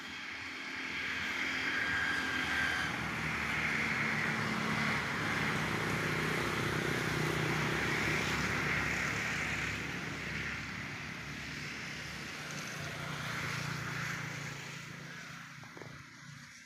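An engine passing by: a steady drone that swells over the first couple of seconds, holds, then fades away near the end.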